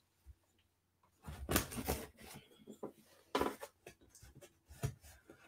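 Cardboard shipping box being handled and opened by hand, in several short bursts of scraping and rustling.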